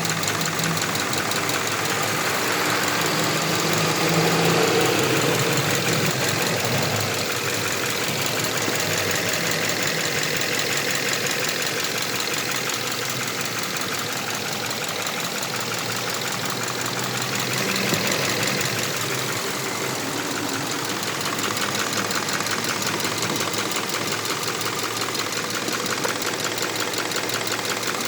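Subaru FB20 flat-four engine running with a fast, even clicking over its steady hum, heard on each side of the engine; the owner wonders whether it is valve clearance that needs adjusting.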